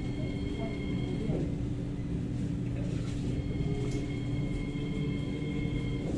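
Inside an SMRT C751B metro train rolling slowly under a rain speed restriction: a steady low hum and rumble, with a thin high whine that comes in twice, briefly and then for a few seconds.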